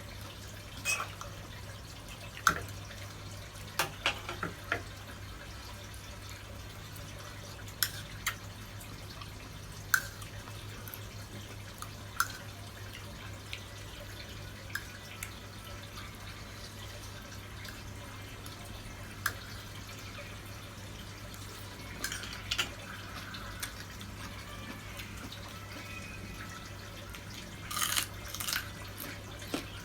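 Irregular sharp clicks and taps of kitchen utensils, a few seconds apart, with small clusters about two-thirds of the way in and near the end, over a steady low hum.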